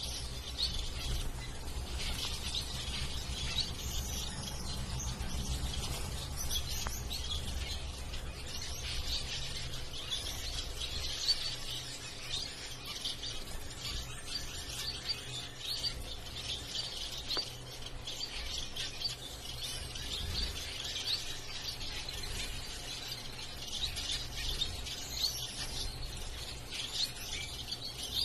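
A group of caged zebra finches calling: many short, overlapping chirps throughout. A low hum runs underneath and fades about halfway through.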